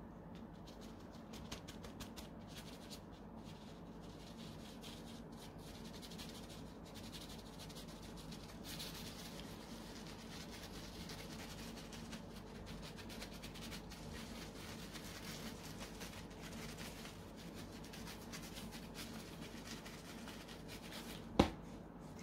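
Powdered sugar being sifted by hand: a faint, scratchy rubbing with fine ticks, and one sharp click near the end.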